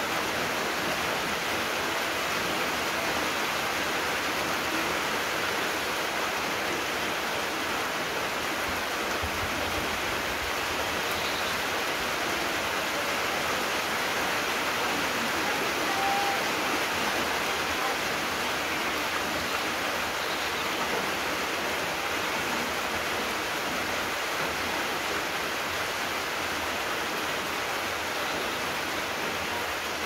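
Steady rain, an even wash of hiss that holds at the same level throughout.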